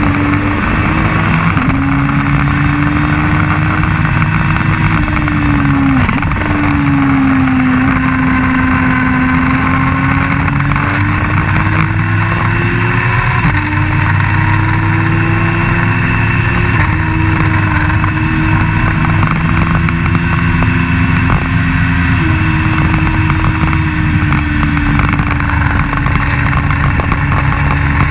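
Race car engine heard on board at high revs, its pitch climbing and dropping sharply several times as it changes gear, with wind rush over it.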